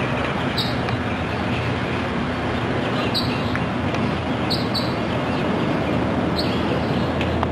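Steady outdoor background noise with a low rumble and hiss, and a bird's short high chirps several times.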